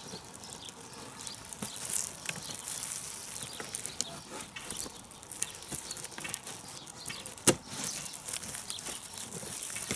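Knife cutting through a gladiolus corm on a plastic lid: scattered small crackles and clicks with the rustle of plastic gloves, and one sharper click about seven and a half seconds in, over a faint steady hiss.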